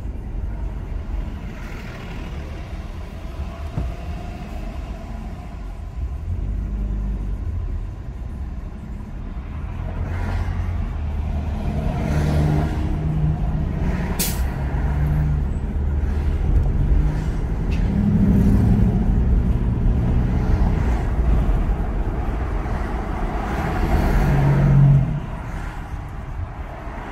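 Road and engine noise heard inside a car moving through town traffic: a steady low rumble, with the engine tones of passing buses and cars swelling through the middle. About halfway through comes one short, sharp hiss of a bus's air brakes.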